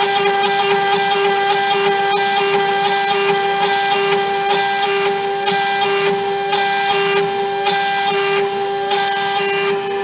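CNC router spindle running with a steady whine while a small end mill cuts into a blue block. The cutting noise comes and goes every second or so as the tool moves along its path.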